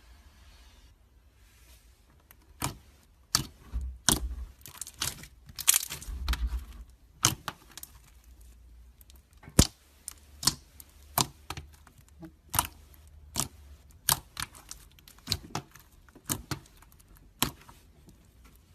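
Slime being squeezed and poked, giving sharp clicks, crackles and pops. These come in a dense cluster with a couple of low thuds, then settle to about one crisp click a second.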